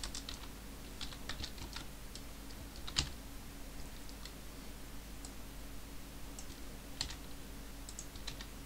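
Typing on a computer keyboard: irregular bursts of keystrokes with pauses between them, and one louder key stroke about three seconds in. A steady low hum runs underneath.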